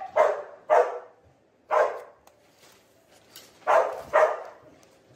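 A dog barking: about six short barks, several of them in quick pairs.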